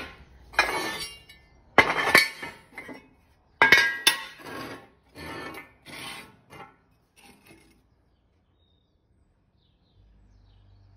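A series of sharp metallic clinks, each ringing briefly and each fainter than the last, dying away after about eight seconds.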